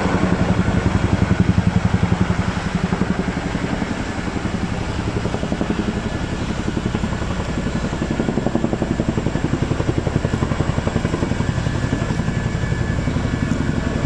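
Tandem-rotor firefighting helicopter flying low overhead, its rotors beating in a fast, steady throb.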